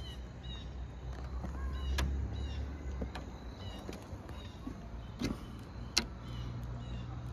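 Stainless steel drip rail molding being pressed and clipped onto a car's roof rail by hand, with two sharp clicks, about two seconds in and near the end, over a low steady rumble.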